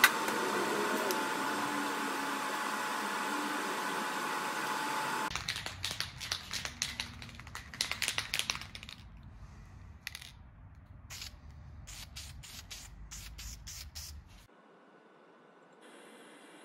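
Workshop fabrication sounds: a steady hiss for about five seconds, then a sudden change to a run of sharp clicks and taps that thin out, ending in a faint hum.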